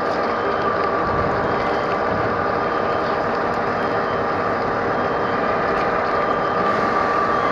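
Metal lathe running steadily while a drill bit bores a rough hole into a steel workpiece, an even machine hum with a thin steady whine.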